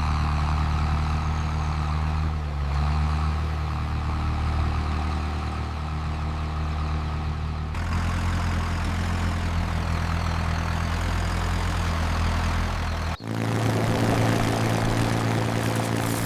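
A steady, low, engine-like mechanical drone that changes abruptly about 8 and 13 seconds in.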